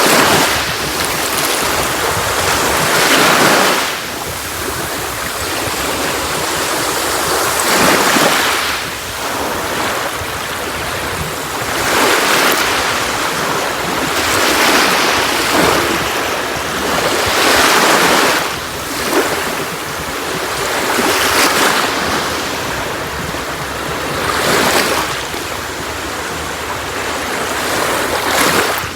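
Sea waves breaking and washing up a beach. The surf swells and fades about every three to four seconds.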